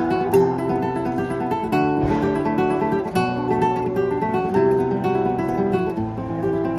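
Nylon-string guitar with a capo, played solo in flamenco style: an improvised run of plucked notes, with a sharp strummed chord about two seconds in.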